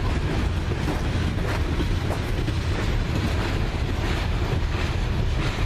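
Loaded coal hopper cars rolling past on the rails, a steady rumble of steel wheels on track, with wind noise on the microphone.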